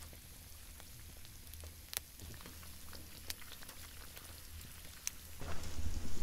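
Faint crackle and sizzle of an open wood fire, with food warming on a wire grill over the embers, and scattered sharp pops. Near the end, louder rustling and knocks as a gloved hand takes hold of the pot on the grill.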